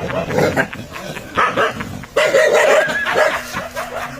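Dog barking repeatedly and aggressively, in a run of short barks that is loudest a little past halfway.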